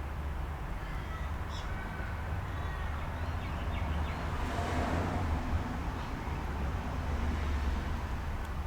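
Steady low background hum, with a few faint high chirps about a second and a half in and a brief swell of hiss around the middle.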